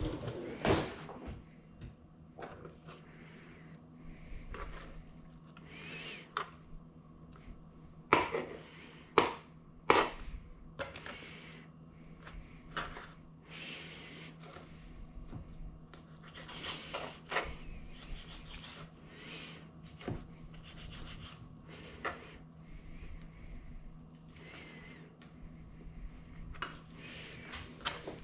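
Kitchen handling sounds during food preparation: scattered knocks and thunks, some sharp, with rubbing and scraping in between, over a steady low hum.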